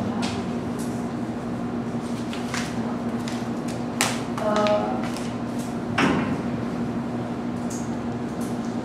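Room tone with a steady low hum, broken by a few sharp knocks, the loudest about four seconds in and again two seconds later, with a short vocal sound just after the first.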